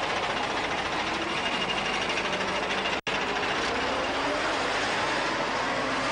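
Truck engine running, a steady dense noise, broken by a split-second gap about three seconds in.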